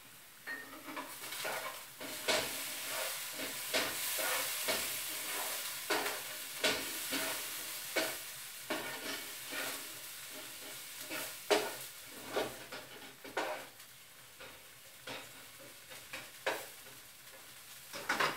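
Garlic and mushrooms sizzling in a frying pan while a utensil stirs them, scraping and knocking against the pan in irregular clicks. The sizzle is strongest in the first half.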